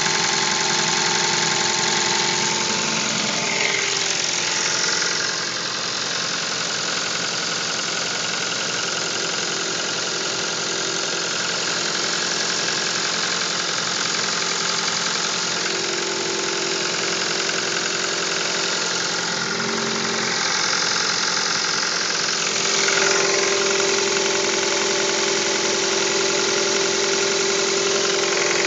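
2012 Hyundai i30 engine running cold at a steady speed, with the knocking (стук) of a cold engine.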